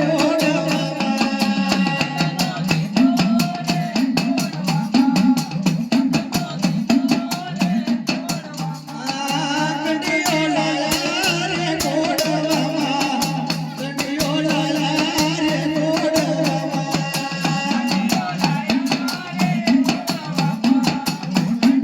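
Live Gujarati dakla devotional folk music: a voice singing over fast, steady drum and rattle beats.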